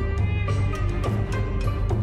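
Instrumental background music, with sustained notes over regular percussive hits.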